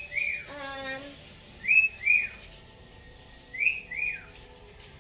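A repeated two-note chirp: pairs of short whistled notes, each rising then falling, repeating about every two seconds. A short hummed voice about half a second in.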